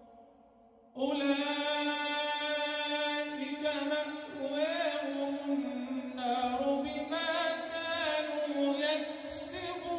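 A man's solo voice chanting Quranic recitation in the melodic tajweed style through a microphone, in long held notes that waver and slide in pitch. It begins about a second in, after a short pause.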